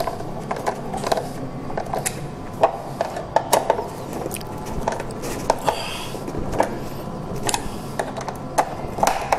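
Irregular light clicks and knocks of a flat TV's plastic stand foot being fitted and fastened with a Phillips screwdriver.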